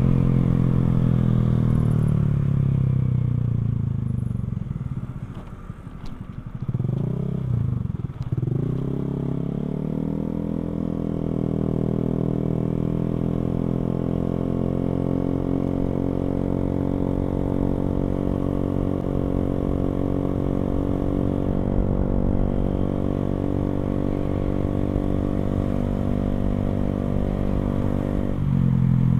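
Motorcycle running through an aftermarket NOB1 exhaust while riding. The engine note falls as the bike slows over the first few seconds, dips low, then climbs and holds a steady cruise, with a change in pitch and a louder note near the end.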